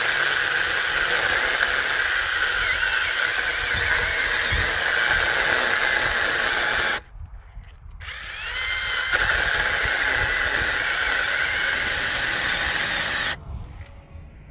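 Sainlogic 6-inch 21-volt battery mini chainsaw cutting through a thick log, its chain and motor running with a steady high whine. The saw stops for about a second partway through, then starts again, builds back up and runs until it stops shortly before the end.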